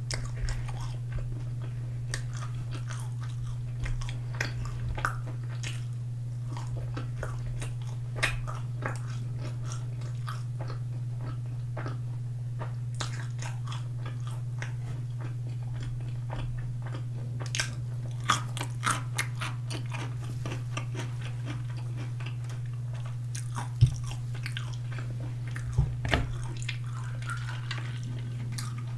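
Close-miked biting and chewing of sauced boneless fried chicken, with scattered sharp mouth clicks and wet chewing noises over a steady low hum.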